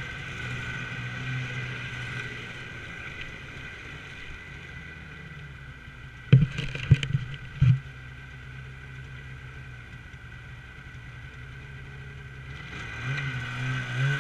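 Snowmobile engine running steadily, easing off through the middle, then throttling up again near the end. A few loud, sharp knocks come close together about halfway through.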